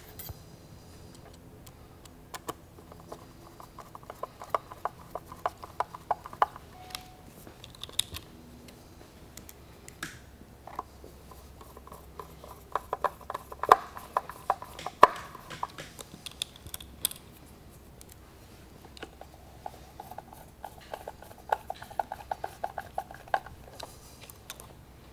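Phillips screwdriver driving pickguard screws into a bass guitar body: three spells of rapid small clicks and scrapes, each a few seconds long, with a few single clicks between them.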